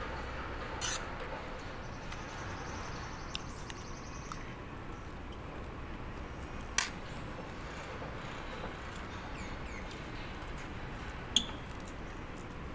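Someone eating with a metal spoon from a plate: a few short sharp clicks, the loudest about halfway through and near the end, over steady background noise.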